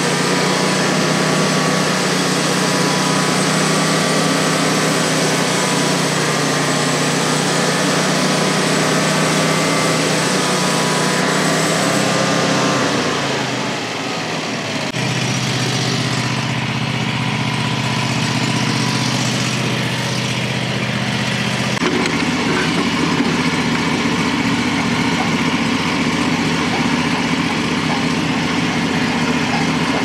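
Frontier OS35 sawmill's 670cc gasoline engine running cold on half choke to warm up. About halfway through its pitch slides down and it dips briefly, then it settles into a steady run again, its tone shifting once more later on.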